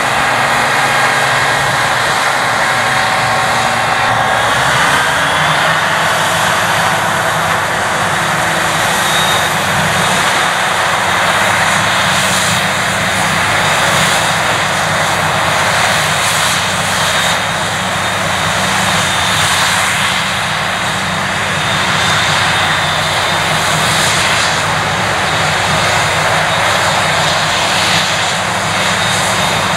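Claas Jaguar 980 self-propelled forage harvester working at full load chopping maize: a loud, steady engine drone under the dense rushing noise of the chopper and blower throwing silage out of the spout. The engine pitch shifts slightly a few seconds in, and the engine of the tractor running alongside blends in.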